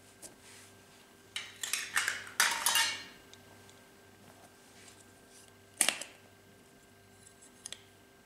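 Hard plastic slime containers being handled: a burst of rattling and clattering for a couple of seconds, then one sharp click about halfway through and a couple of small ticks near the end.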